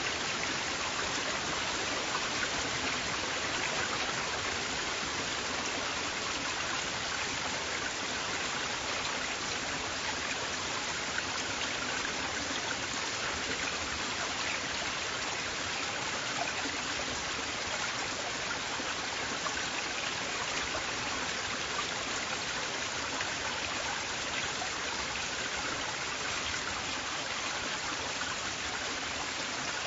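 River water flowing steadily over stones, a continuous rushing and babbling with small splashes throughout.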